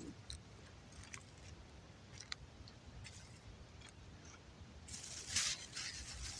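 Campfire burning damp, ice-crusted firewood: faint scattered crackles and pops, with a louder burst of crackling about five seconds in.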